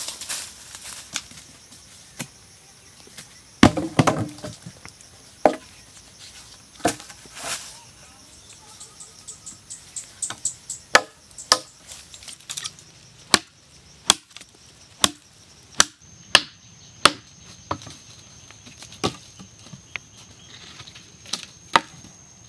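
Wooden log poles dropped with a heavy clatter onto dirt about four seconds in, then a run of sharp wooden knocks about once a second as the logs are handled and struck. A steady high insect whine sounds behind, coming in plainly about two-thirds of the way through.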